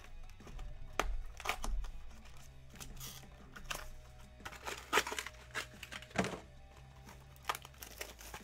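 Hands handling and opening a trading-card box and its packs: an irregular string of crinkles, clicks and taps, over quiet background music.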